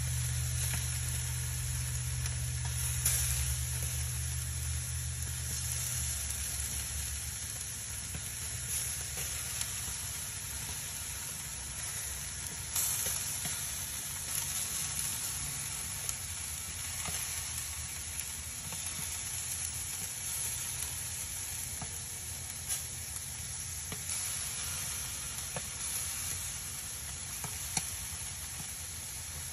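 Charcoal briquettes burning in a grill, hissing and crackling steadily with scattered small pops. A low steady hum stops about six seconds in.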